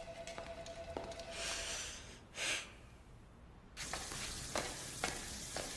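Soft rustles and a brief whoosh, then a steady hiss with bare footsteps slapping on a tiled floor about twice a second.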